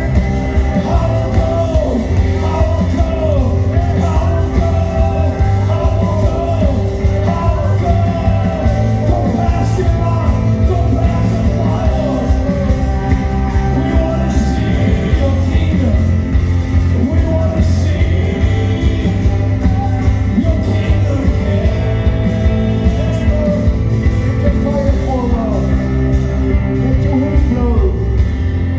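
Worship music: a voice singing a song over steady band accompaniment with sustained bass.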